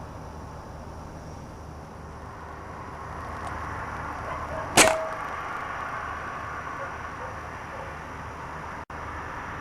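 A single air rifle shot about halfway through: one sharp crack with a brief ringing tone after it, over a steady low background noise.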